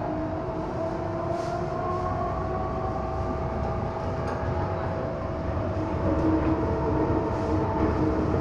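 MTR M-Train electric multiple unit heard from inside the car: the traction motors whine, rising slowly in pitch as the train picks up speed, over a steady tone and a low running rumble that grows gradually louder.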